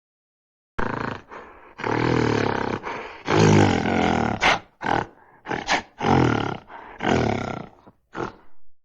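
Gorilla sound effect: a run of deep, rough grunts and roars, starting about a second in and coming as six or seven loud calls with short breaks between them, the last one short.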